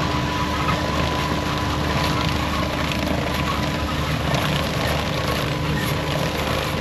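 Diesel farm harvest machinery running steadily, a constant engine rumble with a steady whine.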